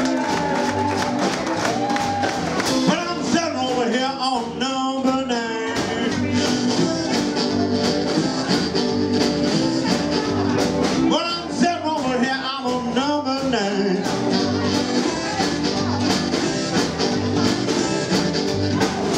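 Live blues band playing: drums, upright double bass and electric guitar under an amplified lead of blues harmonica and vocals, its notes bending up and down.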